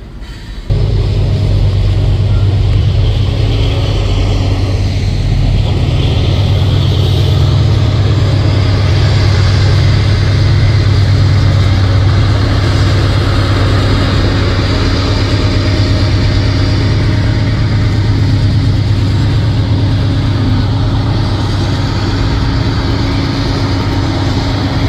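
Norfolk Southern diesel locomotive passing close by, its engine running with a loud, steady low drone over the rumble of freight cars on the rails. The sound comes in abruptly about a second in.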